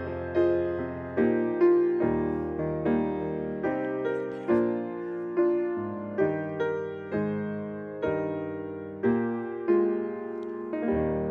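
Solo piano playing slow, gentle music, a note or chord struck about once a second, with the final chord ringing out near the end.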